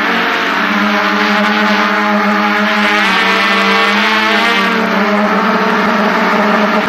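DJI F550 hexacopter's six electric motors and propellers buzzing steadily, close up, as the drone lifts off; the pitches shift and beat against each other about halfway through as the motors change speed.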